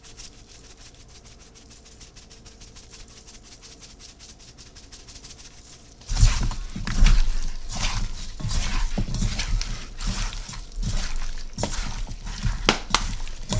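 Faint patter of dry rub being shaken onto raw chicken wings, then, about six seconds in, louder irregular handling noise as a gloved hand tosses the wet wings around a stainless steel bowl, with sharp knocks against the metal.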